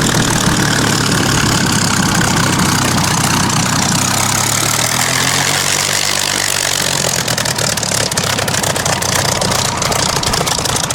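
Piston engine of a Second World War Spitfire or Hurricane fighter running at idle after landing, steady, with its pitch shifting for a few seconds around the middle.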